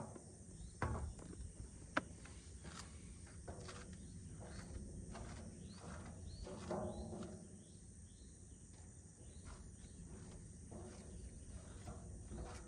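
Faint outdoor ambience with a few small sharp knocks and clicks in the first few seconds and soft rustling later.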